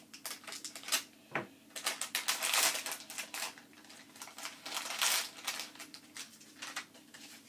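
Foil blind-bag wrapper crinkling and crackling in quick irregular bursts as it is torn open by hand.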